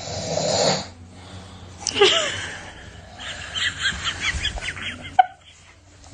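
A rasping snore, then a short vocal sound that falls in pitch, followed by a run of high-pitched giggles for a couple of seconds and a single sharp click.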